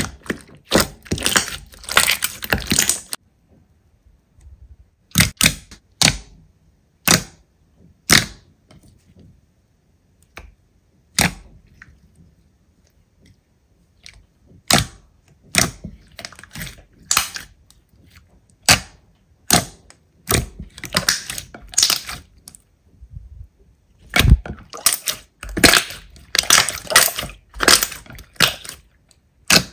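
Slime being pressed and squeezed by hand, giving sharp pops and crackles as trapped air bursts: single pops between thicker runs of crackling, with short pauses in between.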